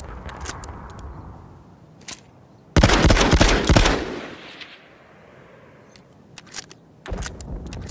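Browning Auto-5 long-recoil semi-automatic shotgun firing. A very loud blast about three seconds in lasts about a second and then fades, and another begins near the end, with short clicks in between.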